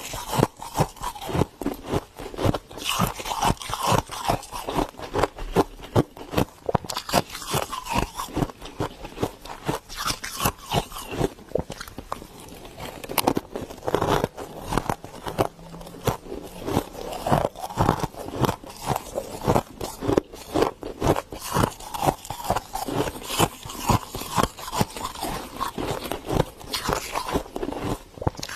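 Soft, fluffy freezer frost being crunched close to the microphone: a dense, continuous run of crisp crunches and crackles with no pauses.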